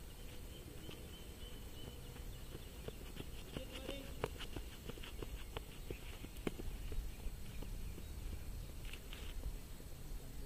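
Open-air ambience with a steady low rumble of wind on the microphone. A run of light, irregular ticks and taps comes in the middle for a few seconds.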